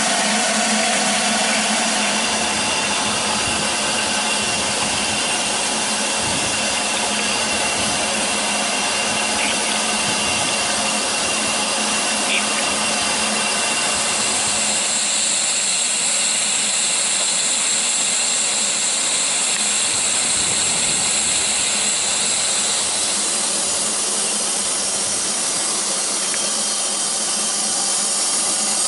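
Steady hissing, rushing noise of a narrow-gauge steam train, with no clear beat, turning hissier in the high range about halfway through.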